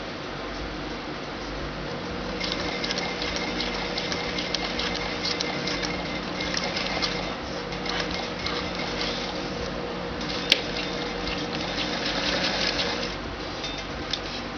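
Electric domestic sewing machine stitching through nylon fabric and shock cord: the motor hums, and about two seconds in it speeds into fast, even needle ticking that stops near the end. One sharp click about ten seconds in.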